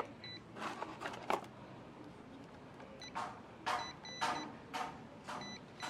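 Metal multimeter test probes scraping and clicking against a window motor's carbon-brush terminals, about two clicks a second in the second half. A multimeter's continuity beeper sounds briefly near the start, for about a second from three seconds in, and again near the end: the sign of an unbroken circuit where the probe makes contact.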